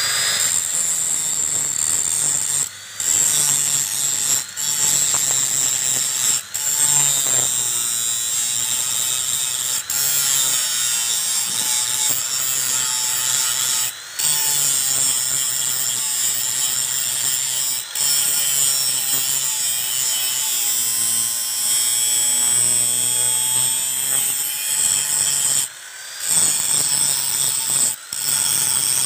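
Handheld angle grinder running against a steel machete blade, grinding its edge: a steady high whine with grinding noise, broken by several brief gaps.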